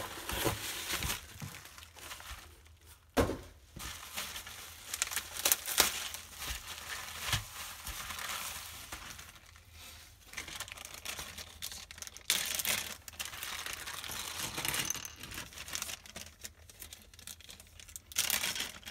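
Clear plastic bags crinkling and rustling as they are handled, with irregular sharp clicks and clatters of small plastic LEGO minifigure parts and plates tipping out onto a table.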